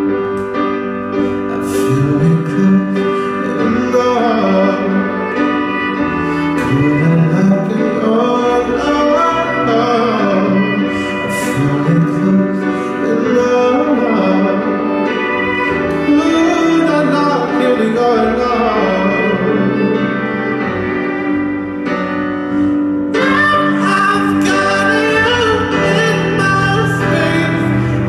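Live acoustic pop song: a male voice singing over bowed cello and guitar. The accompaniment grows fuller about 23 seconds in.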